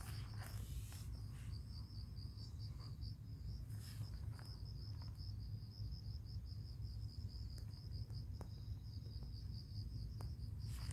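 An insect, cricket-like, trilling steadily in a high, rapidly pulsing chirp, over a steady low rumble with a few soft knocks.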